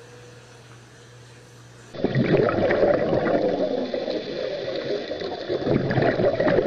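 Quiet room tone with a faint low hum, then about two seconds in an abrupt switch to loud underwater sound of rushing, bubbling and gurgling water.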